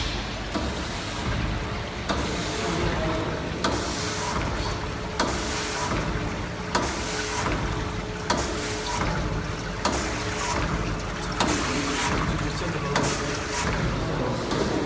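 Henneken HPI 350 brine injector running on chicken breasts, its needle head cycling evenly about once every one and a half seconds, each stroke a sharp click followed by a short hiss, over a steady machine hum.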